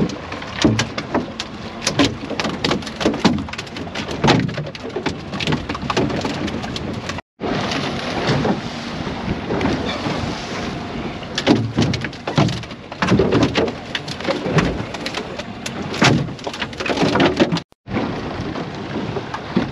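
Wind buffeting the microphone and sea water splashing around a small open fishing skiff, with frequent irregular knocks and splashes as mahi-mahi are hauled aboard by hand. The sound cuts out abruptly twice, once a third of the way in and once near the end.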